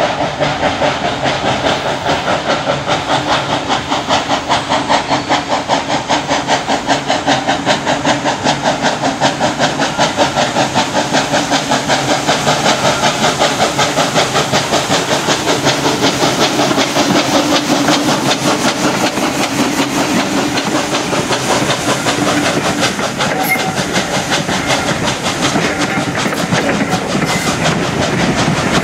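Furness Railway No. 20, an 1863 Sharp Stewart steam locomotive, chuffing at a quick, even beat as it works towards and past, hauling coaches. The beat softens after about twenty seconds, when the engine has gone by and the coaches roll past.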